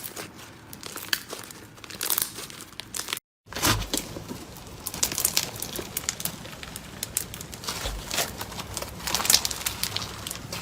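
Slime being squished and worked, with dense, irregular crackling and popping clicks. The sound cuts out completely for a moment about three seconds in.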